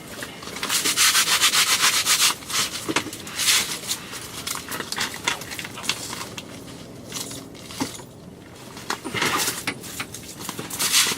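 Irregular rustling and scraping in several bursts; the longest and loudest comes about a second in, with shorter ones later.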